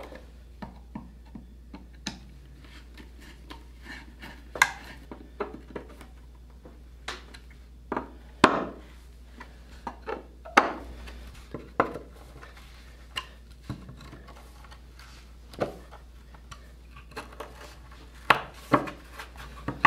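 Irregular clicks, taps and light knocks of a screwdriver and steel wood screws against a wooden cleat and table frame as the screws are worked by hand.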